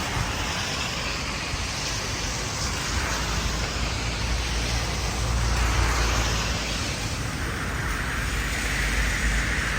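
Steady outdoor street noise: a continuous hiss of city traffic with a deep rumble underneath.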